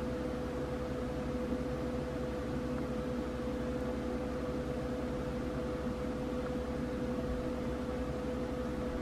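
Steady machine hum with a constant mid-pitched tone, unchanging throughout.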